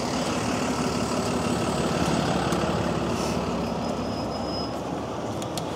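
A city bus engine running close by in street traffic, a steady low drone that eases off slightly near the end.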